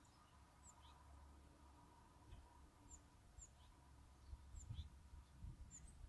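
Faint, short, high bird chirps repeating irregularly, about one a second, over a low rumble, with a few soft low thumps near the end.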